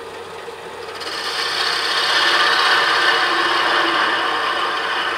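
A turning tool cuts the rounded end of a spinning wooden blank on a wood lathe. The steady scraping hiss of the cut builds about a second in and stops near the end, over the lathe's faint hum.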